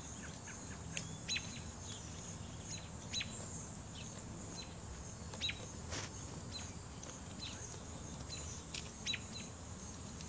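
Small birds chirping in short, sharp calls, scattered irregularly about once a second.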